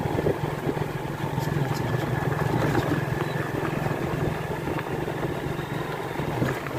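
Motorcycle engine running with a steady hum, heard from the bike being ridden.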